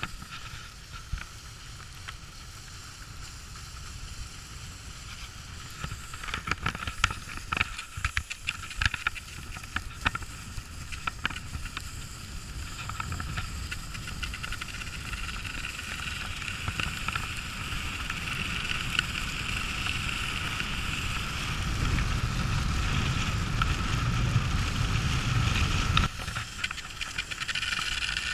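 Rossignol cross-country skis gliding fast in a groomed classic track: a steady hiss of the ski bases on snow, with wind rumbling on the microphone, both growing louder in the second half and easing off shortly before the end. A few sharp clicks come in the first half.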